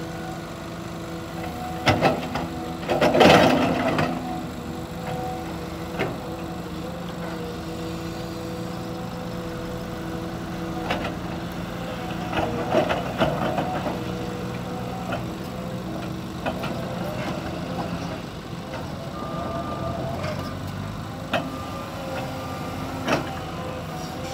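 Caterpillar tracked excavator running steadily while digging, its engine and hydraulics giving a constant drone with a few steady tones. Loud knocks and clatter from the bucket and boom come about two seconds in, with a longer burst just after. More clatter comes around thirteen seconds, and single knocks come later on.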